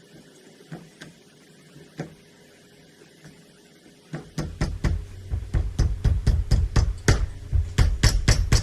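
Hammer tapping a wheel seal into a Yamaha Bruin 350's front hub: a few light taps, then from about four seconds in a fast, even run of heavier blows, about four a second, driving the seal home.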